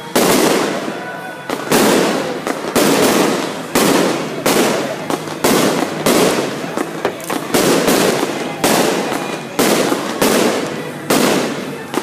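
Aerial fireworks bursting in quick succession, a loud bang roughly every half second to second. Each bang dies away before the next.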